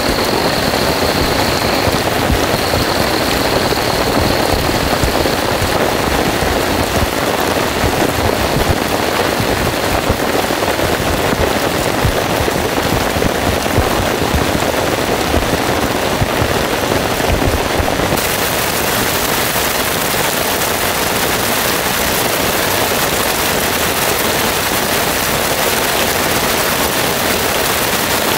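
Heavy rain pouring down in a dense, steady hiss. About eighteen seconds in it turns brighter and hissier.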